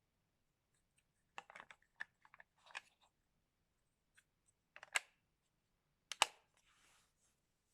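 Hands handling small plastic gear and packaging: a scatter of clicks, taps and short rustles, with the sharpest snap about six seconds in, followed by a brief rustle.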